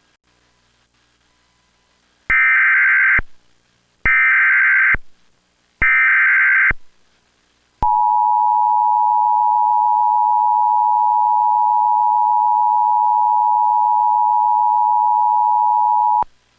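Emergency Alert System tones opening a severe thunderstorm warning: three short, buzzy data bursts of the SAME header that encode the alert, then the steady two-tone attention signal, held for about eight seconds and cutting off shortly before the end.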